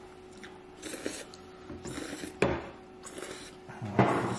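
Cold buckwheat noodles slurped in through the lips in several short, hissy draws, with a sharp tap of wooden chopsticks against the ceramic bowl about halfway through and a louder slurp near the end.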